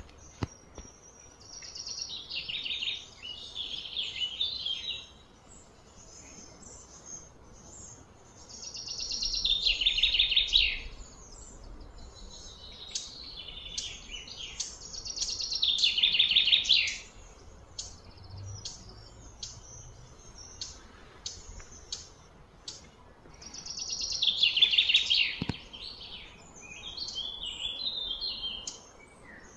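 High-pitched trilling animal calls: four long phrases that swell and then fade, about every six to eight seconds, with faint chirps in between.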